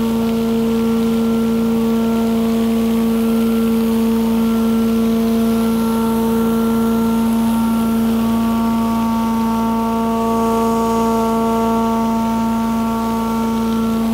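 Steady, loud drone of pressure-washing equipment at work: two 16-inch vacuum recovery surface cleaners washing wet concrete while the Delux Tornado 4800 vacuum recovery system sucks up the wash water. A constant low hum with higher tones above it, some of them fading in and out, runs over a hiss of spraying water and suction.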